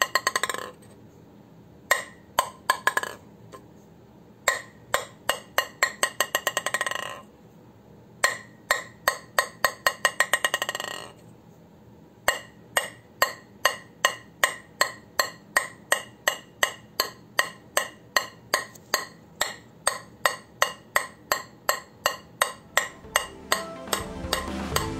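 A bare wooden table tennis blade being tapped, giving quick runs of light, ringing wooden clicks at about four or five a second, broken by short pauses. Music comes in near the end.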